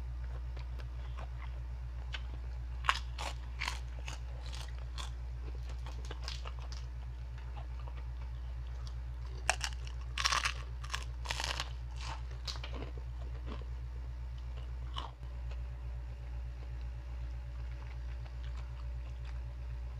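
Chicharon (deep-fried pork rinds) being bitten and chewed close to the microphone: sharp, crisp crunches in a few clusters, busiest about ten to twelve seconds in, over a steady low hum.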